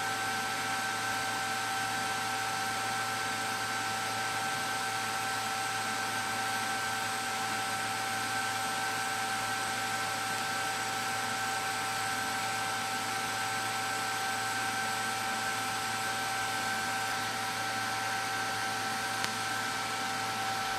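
Steady machine hum and hiss with a constant high whine, like a running fan, holding level throughout.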